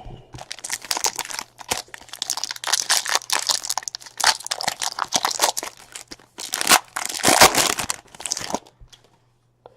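Trading card pack wrappers crinkling and tearing as packs are opened by hand, with irregular crackly rustling and handling of the cards that runs on until shortly before the end, over a faint steady low hum.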